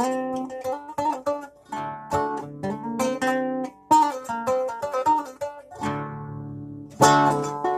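A plucked string instrument is strummed and picked in an unhurried rhythm, its chords ringing and fading between strokes. A chord is left to die away for about two seconds before a fresh strum near the end.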